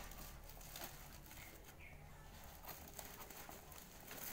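Faint crinkling and small clicks of bubble wrap and cardboard being handled and pulled apart as a parcel is opened.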